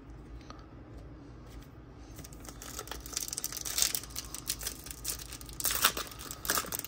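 Foil wrapper of a Topps Gold Label trading-card pack crinkling and tearing as it is pulled open by hand, starting about two seconds in, with louder rips a little before the midpoint and near the end.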